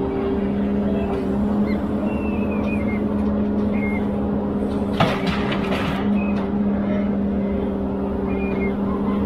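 Ponsse Elephant forwarder's diesel engine running steadily under crane work, with a single sharp knock about five seconds in.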